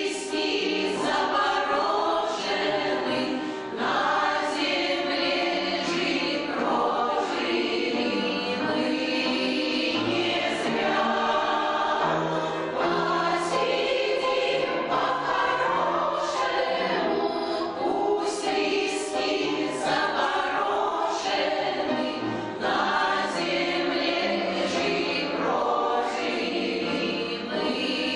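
Amateur choir of older veteran singers singing a song, in continuous phrases.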